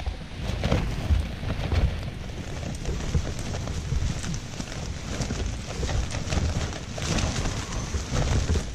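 Wind and rain hitting a tent from inside during a night storm: a heavy, gusting low rumble of wind against the fabric, with frequent sharp patters and rattles.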